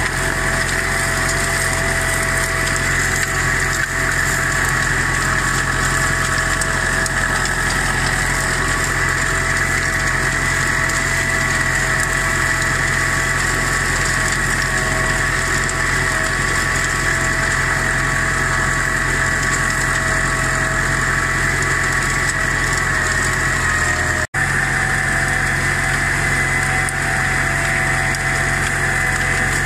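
IMT 560 tractor's three-cylinder diesel engine running steadily, pulling a disc harrow through ploughed soil in second gear. The sound cuts out for an instant about three-quarters of the way through.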